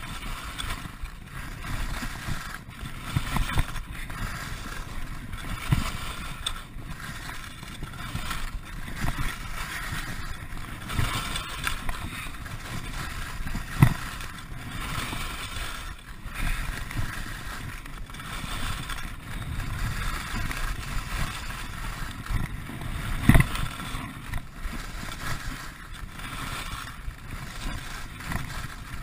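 Skis scraping and clattering over a rock-hard, frozen piste, with repeated sharp knocks as they hit bumps and ridges in the icy snow; the hardest hits come about 14 and 23 seconds in.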